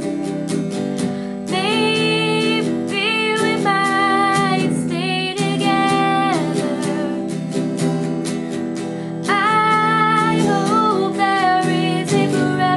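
A gentle love song playing: picked acoustic guitar with a lead melody over it in two long phrases.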